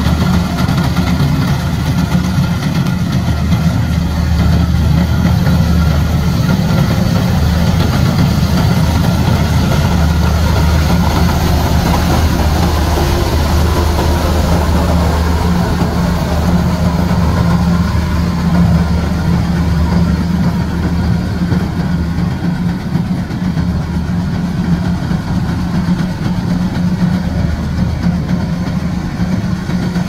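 Kubota DC-105X tracked combine harvester running steadily while cutting and threshing rice: a constant low diesel engine drone with machinery noise over it. It eases off slightly in the last third as the harvester moves away.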